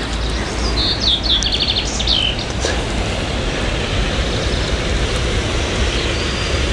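A small bird chirping in a quick run of short high notes about a second in, over steady outdoor noise with a low rumble.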